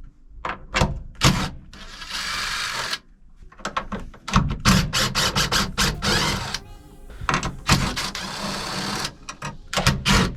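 Screws being undone from the hydraulic handbrake bracket in a car's cabin: repeated clicks and knocks of tools and metal parts, with a steady whir of about a second just after two seconds in.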